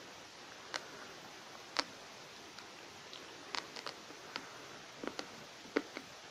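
Uncooked dry pasta being chewed, crunching in a scatter of short, sharp, irregular cracks, about ten in all, several close together a little past halfway.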